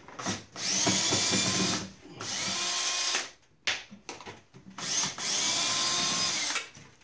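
Power drill running in three bursts of about one to one and a half seconds each, with short pauses between. Each run winds up to speed and then holds a steady whine.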